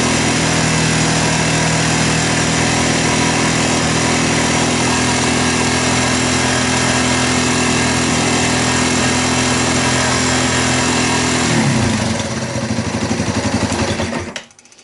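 Yamaha TW225's air-cooled single-cylinder four-stroke engine held at steady high revs, about 5000 rpm, while its charging voltage is measured. Around twelve seconds in, the revs fall back to a slow, pulsing idle, and the engine stops near the end.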